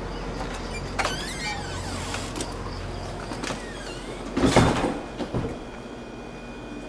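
Glass entrance door being opened, with a squeaky scrape about a second in and a loud thump a little after four seconds. A steady low outdoor hum stops at the thump, leaving quieter indoor room tone.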